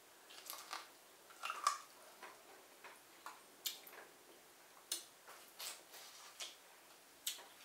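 Biting and chewing corn on the cob: irregular crisp clicks and wet mouth smacks, a dozen or so scattered through.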